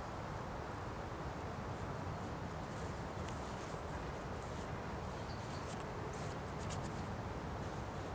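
A paintbrush dabbing and scratching on the painted panel in short strokes, over a steady low outdoor background rumble.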